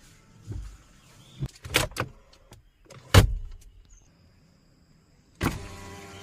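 Mahindra XUV700 mechanisms working: a series of sharp clicks and knocks, the loudest about three seconds in, then, after a short quiet, a sudden clunk near the end that runs into the steady hum of an electric motor, such as a power window.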